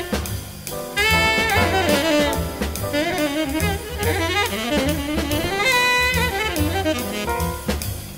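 Background jazz music: a saxophone playing a melody over a drum kit with a steady beat.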